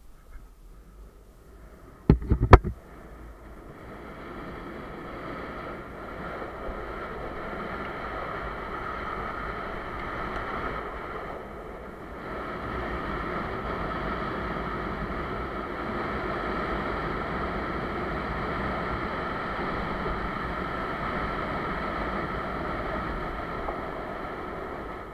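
Longboard wheels rolling fast down asphalt: a steady rushing noise with a faint hum in it that builds over the first few seconds, eases briefly near the middle, then carries on. A few sharp knocks about two seconds in.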